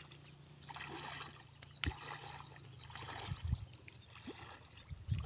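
Soft sloshing and swishing of shallow paddy water as a person wades through it, dragging a push net. The sound comes and goes in gentle surges, with one light knock about two seconds in.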